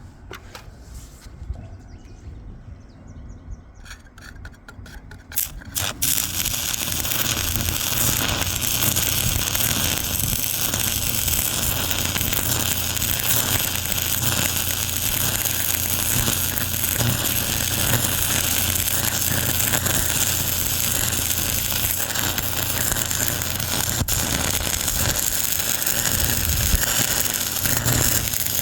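Arc welding on steel riser rods: the arc strikes about six seconds in and then crackles and hisses steadily, over a steady low hum.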